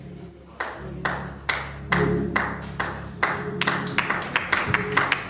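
Gospel church music starting up: sustained low keyboard and bass chords under a sharp, steady beat of claps and percussion about twice a second, the beat growing busier toward the end.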